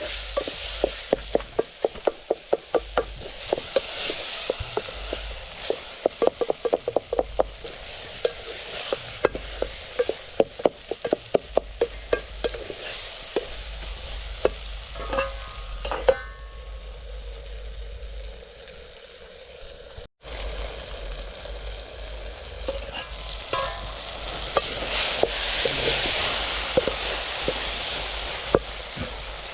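Food being stirred in a cooking pot, the spoon clacking against the pot several times a second, then a sizzling hiss of food cooking.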